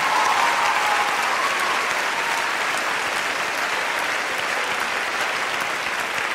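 A large theatre audience applauding, dense and sustained, loudest at the start and gradually easing off.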